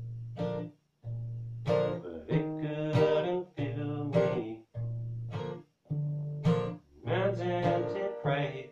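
Acoustic guitar with a capo, strummed, accompanying a man singing a slow worship song. The sound cuts out to silence for moments several times.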